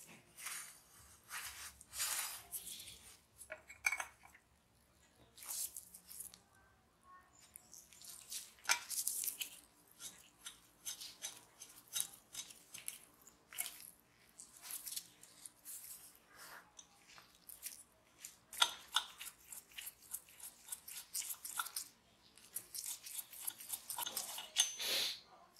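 Gloved hands handling and dismantling a vintage brass blowtorch, with irregular scrapes, clicks and rubbing of glove and metal as the control-valve spindle is unscrewed from the burner body.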